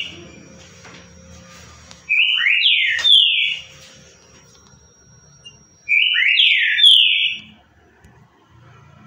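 Green-winged saltator (trinca-ferro) singing its 'currucutil' song: the same short phrase of several slurred notes, sung twice about four seconds apart.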